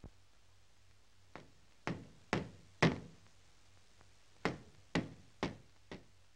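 Hammer knocking a nail in to fix a paper sheet to a wall. There are two runs of blows about half a second apart, with a short pause between runs: four blows near the start (the first one light), then four more a little past the middle.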